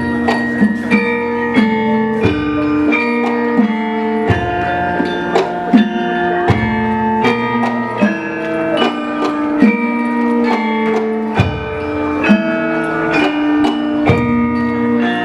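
Javanese gamelan music: bronze metallophones and gongs strike pitched notes that ring on after each stroke, in a steady rhythm over low notes.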